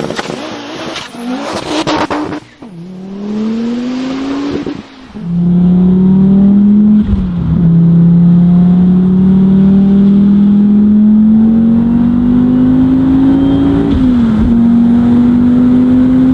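Audi inline five-cylinder engine revving, then pulling hard in gear, its note climbing slowly with brief drops at two upshifts.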